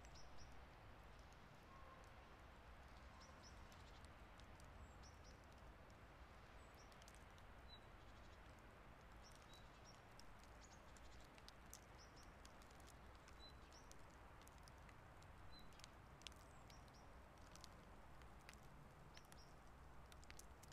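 Near-silent outdoor ambience in light snowfall: a faint low rumble with scattered soft ticks and a few brief high chirps.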